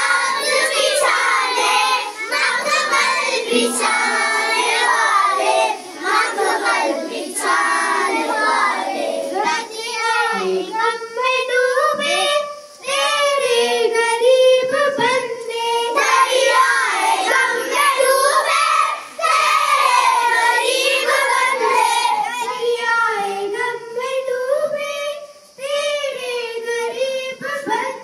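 A group of schoolchildren singing an Urdu prayer together, with short breaks between the sung lines.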